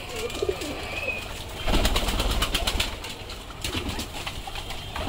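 Domestic pigeons cooing softly, with a louder stretch of scuffling and clattering clicks from about two seconds in that lasts about two seconds.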